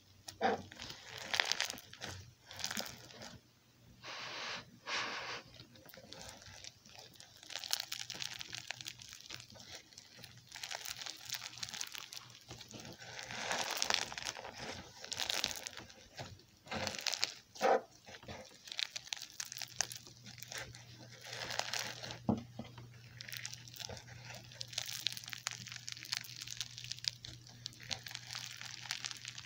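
Bingsu slime (slime packed with small plastic bingsu beads) being squeezed and kneaded by hand, giving dense, irregular crunching and crackling in repeated bursts as the beads grind and pop.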